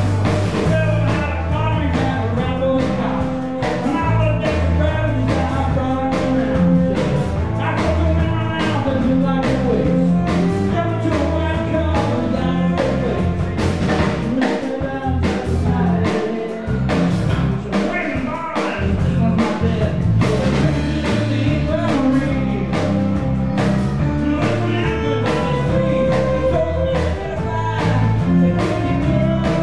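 Live folk band playing a song with a steady drumbeat: acoustic guitar, fiddle, bass and drum kit, with a man singing.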